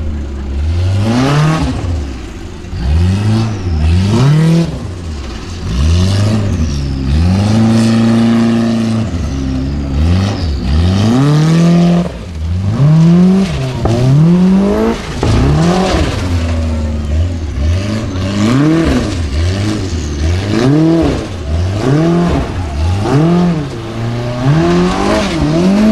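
Formula Offroad buggy's engine revving hard in repeated surges on a steep loose-dirt climb, pitch rising and falling roughly once a second, with a longer held rev about eight seconds in.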